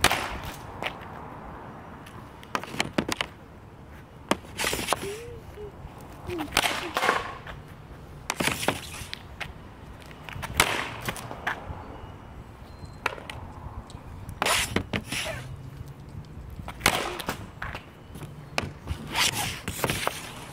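Hockey pucks being shot off a paved pad with a stick: a run of sharp cracks and clacks as the stick blade hits the pavement and the puck, about every two seconds.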